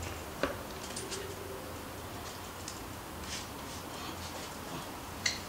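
Quiet garage room tone with a low steady hum and a few faint ticks and taps of hand work, with a sharp click about half a second in and another near the end.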